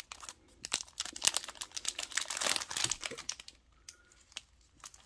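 Foil wrapper of a 1999 Pokémon booster pack crinkling and crackling as it is peeled open and pulled off the cards. Dense crinkling fills the first three and a half seconds, then it thins to a few faint ticks.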